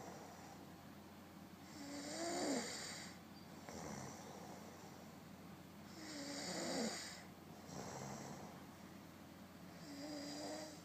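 A person snoring: three loud, rasping snores on the breath in, about four seconds apart, with a softer breath out between them.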